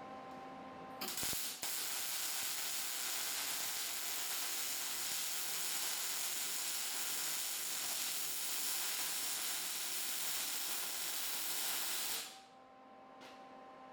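A steady, loud hiss, like a jet of pressurized air. It starts with a click about a second in and cuts off about twelve seconds in.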